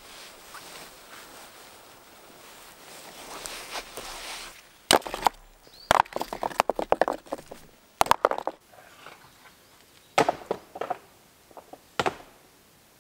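Rustling of moss and soil being pulled up, then rough stones knocking and clattering against each other in sharp clusters every second or two from about five seconds in.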